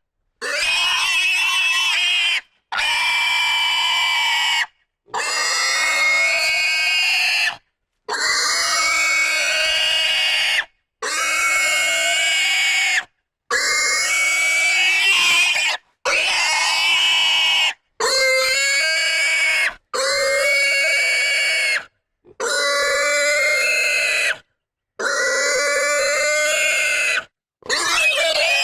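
Pig squealing intensely: about a dozen loud, shrill squeals of roughly two seconds each, each cut off abruptly by a short gap of silence.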